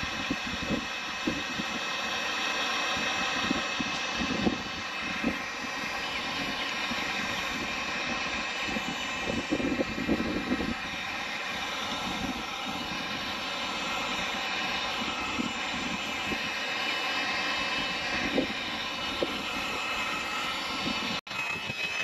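Electric heat gun running steadily, its fan whirring at an even pitch while it heats and softens the roof sealant around an antenna base. Wind gusts buffet the microphone.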